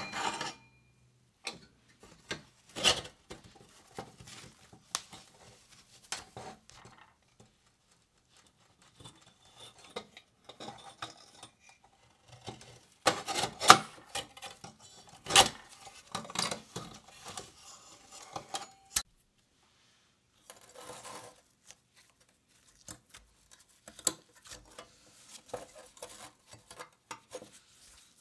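Rusty metal parts of an old Royalux hurricane oil lamp clinking, scraping and rattling as it is taken apart by hand, in scattered knocks with quiet gaps. A busier run of loud clatter comes about halfway through, as the burner is worked loose.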